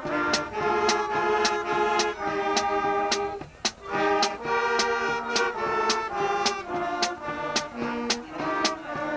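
Elementary school band of saxophones, trumpets and trombones playing a tune together in held notes, with sharp percussion hits keeping a steady beat about twice a second.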